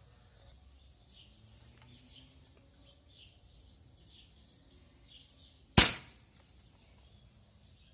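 A single rifle shot from an 1866-pattern lever-action rifle about two-thirds of the way through, fading quickly with no ringing from a steel plate after it. Faint bird chirps can be heard in the quiet before it.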